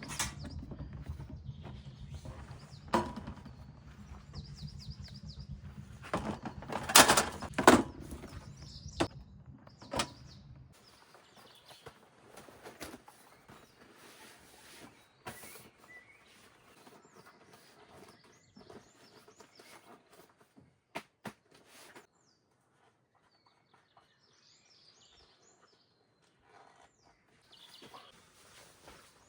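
A low steady rumble with several sharp knocks, the loudest a pair about seven seconds in, stopping after about ten seconds. Then it goes much quieter, with small birds chirping and a couple of faint clicks.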